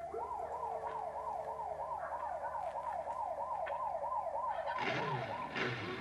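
Siren wailing in a rapid, even up-and-down warble, about three sweeps a second. Other lower sounds join in under it near the end.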